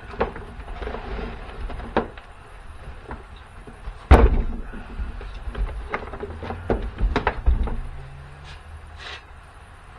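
Irregular knocks and clatters of hard objects being handled, with one loud bang about four seconds in and a quick run of knocks soon after.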